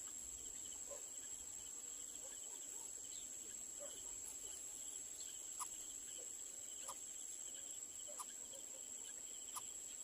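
Insects chorusing: a steady high, thin drone with a second, pulsing trill beneath it. Four short sharp ticks sound in the second half, about a second and a half apart.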